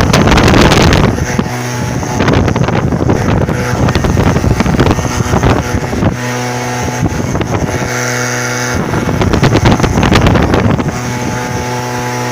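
An engine drones steadily while wind buffets the microphone in loud, uneven gusts.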